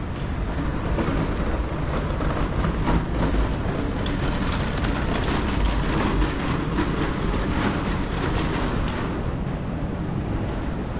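A vehicle passing on a city street, a dense rumble and clatter that builds over the first few seconds and eases off near the end.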